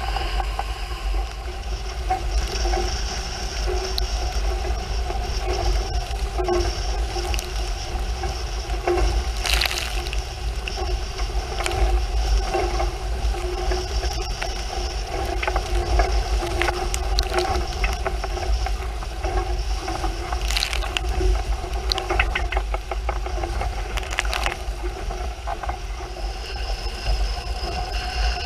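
Wind buffeting the microphone and water rushing along the hulls of a Hurricane 5.9 Sport catamaran under sail, with a steady hum and a few sharp knocks about ten seconds in and again around twenty seconds in.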